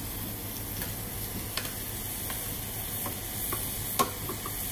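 Seared bone-in chicken legs and sautéed vegetables sizzling steadily in a hot frying pan as the chicken is put back in, with a few light metallic clicks of a spoon against the pan and plate, the sharpest about four seconds in.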